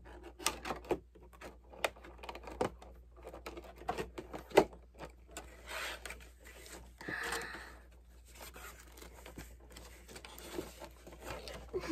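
A cardboard box being opened by hand, its flaps and inner packaging handled, giving a run of sharp taps and clicks and a longer rustling, sliding stretch about six to seven and a half seconds in.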